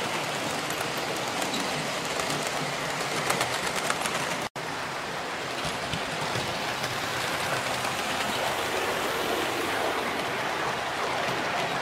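Hornby 00 gauge model trains running on the layout track: a steady rushing rumble of wheels on the rails, with faint rapid clicks in the first few seconds. The sound drops out for an instant about four and a half seconds in.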